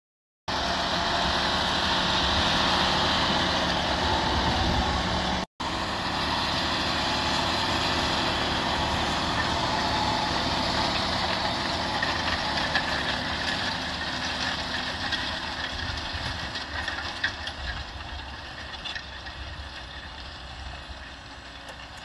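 John Deere 6215R tractor's six-cylinder diesel working under load as it pulls a Kverneland reversible plough through the soil, a steady engine rumble with a loud rushing noise over it. It starts suddenly about half a second in, drops out for an instant around five seconds in, and fades gradually over the last several seconds as the tractor draws away.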